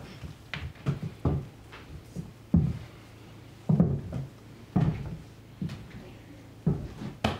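Footsteps on a wooden floor, a series of separate thuds about a second apart as a man walks across the room.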